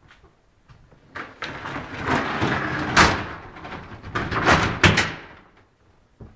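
A door being moved: a scraping noise for about four seconds, with two sharp knocks, about three seconds in and near five seconds.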